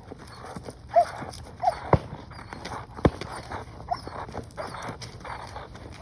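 A dog working at a bite glove, huffing and growling in short rhythmic bursts, with a few brief high squeaks and two sharp knocks about two and three seconds in. Birds chirp faintly in the background.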